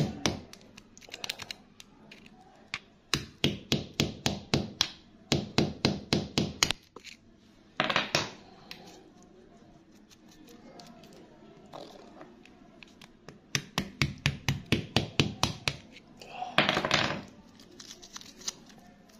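Rapid runs of small clicks and taps, several a second, with two longer gritty scrapes, as a wooden stick and fingertips dig wet sand and grit from around an embedded stone.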